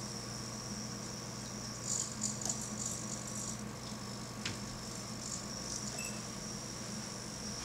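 Small hobby servos of a pan/tilt laser head buzzing in short high-pitched bursts as they move, about two seconds in, over a steady electrical hum. A single sharp click a little past the middle.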